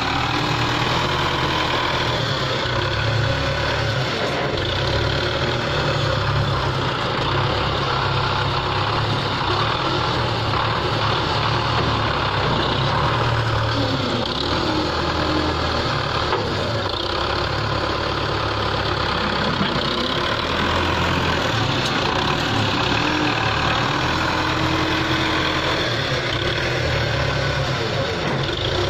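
Belarus 510 tractor's diesel engine running steadily as it works its front loader, scooping manure and tipping it into a trolley.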